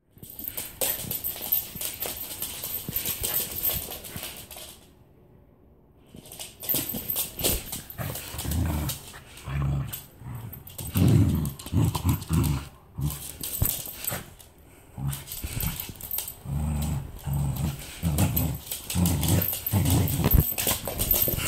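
Pembroke Welsh corgi growling in short low bursts as it attacks and tugs a toy, with its claws clicking and scrabbling on a hard floor. After a brief quiet spell, the growls come again and again.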